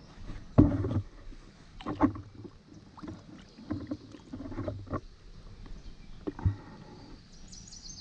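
Water splashing and sloshing in a few separate bursts, the loudest about half a second in and another about two seconds in.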